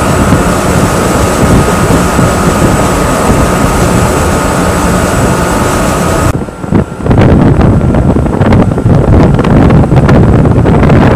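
Loud, steady wind and engine noise recorded from a boat at sea, with a thin steady whine over it. About six seconds in the sound cuts to gusty wind buffeting on the microphone.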